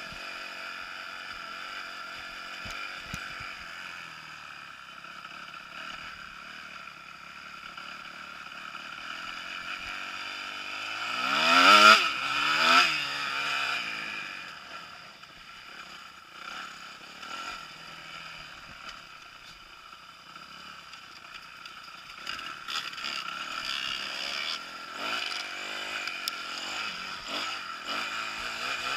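Kawasaki KX250F motocross bike's four-stroke single-cylinder engine running under way, revving hard twice in quick succession a little before halfway, its pitch climbing steeply and dropping back each time. The rest of the time it runs at lower revs, with irregular knocks near the end.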